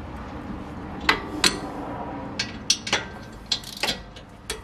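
Irregular metal clinks and knocks of hand tools on the hub and bearing assembly's mounting bolts as they are tightened, a few with a brief metallic ring.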